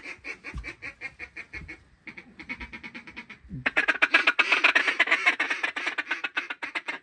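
Duck call blown in fast runs of quacks, a calling chatter meant to draw ducks in. The quacks are moderate at first, break off briefly, then come louder and faster over the second half.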